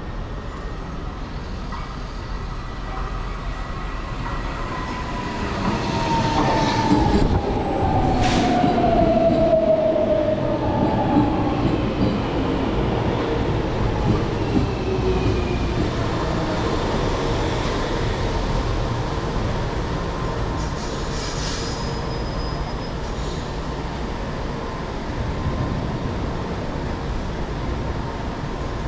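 Brasília metro train running through a station, a steady rumble that swells about six seconds in. As it does, a whine falls in pitch, with a sharp click partway through and some wheel squeal.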